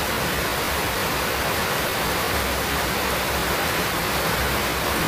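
A steady hiss, even across low and high pitches, with no clicks or knocks.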